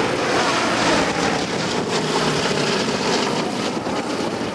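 B-17 Flying Fortress's four radial engines droning as the bomber makes a parade pass, a steady rushing drone that swells about a second in, mixed with wind on the microphone.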